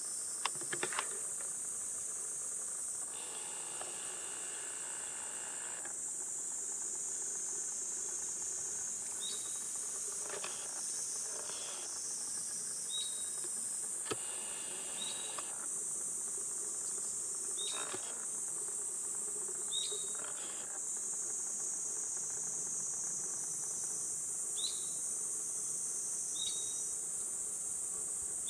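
A chorus of cicadas shrilling steadily in a high, unbroken drone. Short high chirps recur every couple of seconds over it, along with a few soft knocks.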